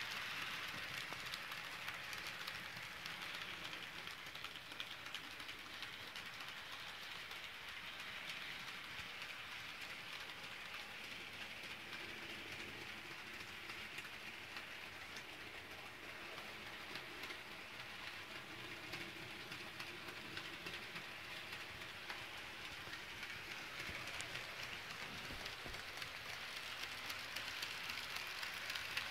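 Rivarossi HO scale 0-8-0 model steam locomotive running along the track: the steady whirring, hiss-like running noise of its small motor and wheels. It is louder at the start and again near the end, and a little fainter in between.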